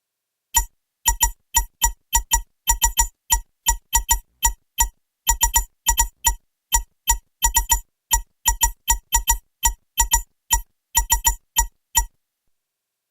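Synthesized sci-fi keyboard-typing interface sound effect: an irregular run of short electronic blips with a low thump under each, like fast keystrokes, about three or four a second. It stops about a second before the end.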